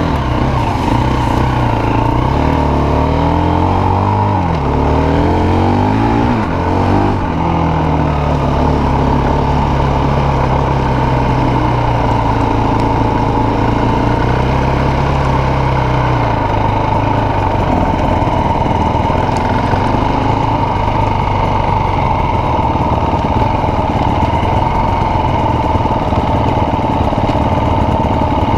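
Enduro dirt bike engine being ridden: the revs rise and fall several times in the first several seconds as the bike pulls away, then hold steady for a while before giving way to a rougher, even running sound, with a constant high whine throughout.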